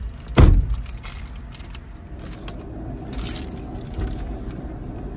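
A heavy thud about half a second in, typical of a pickup truck's door being shut, followed by the steady low rumble of the truck running, with a few light clicks and rattles.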